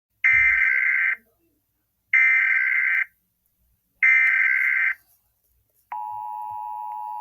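Emergency Alert System SAME header: three identical one-second bursts of screechy digital data tones, then a steady electronic attention tone begins, marking the start of a new weather warning broadcast.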